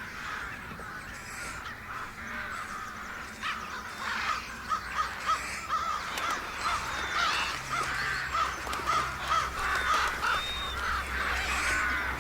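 A large flock of crows cawing, the calls growing thicker and louder into a rapid, dense chorus about four seconds in, over a faint low hum.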